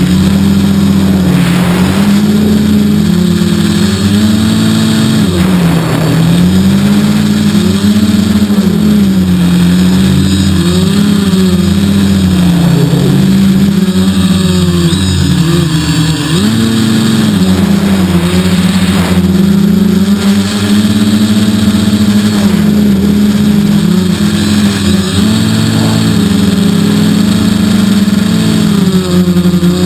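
3DR quadcopter's electric motors and propellers humming, the pitch wavering up and down constantly as the flight controller keeps changing motor speed against strong wind. A few brief surges of wind noise come through.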